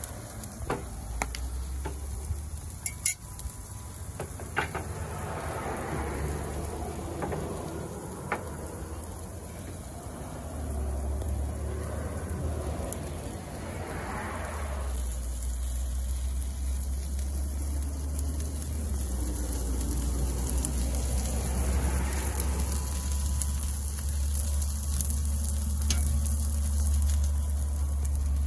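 Chicken breasts and asparagus sizzling steadily on the hot grates of a Big Green Egg kamado grill. A few sharp clicks come in the first five seconds, and a low rumble builds from about ten seconds in.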